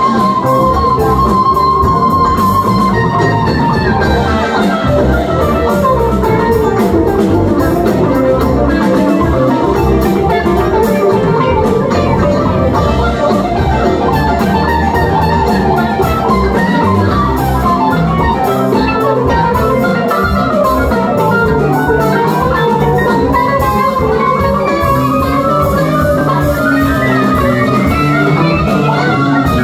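Live rock band jamming instrumentally on electric guitars, bass, drum kit and keyboards. A lead line slides down over several seconds early on and climbs back up near the end.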